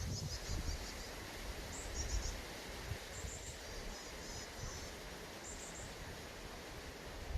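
Woodland ambience: short, high chirping trills recurring every second or so, over a low wind rumble on the microphone.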